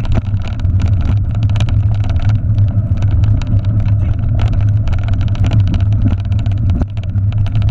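A mountain bike rolling fast over a rough dirt trail, heard from a handlebar-mounted camera: a steady low rumble of wind buffeting the microphone, with frequent rattles and clicks from the bike jolting over the ground.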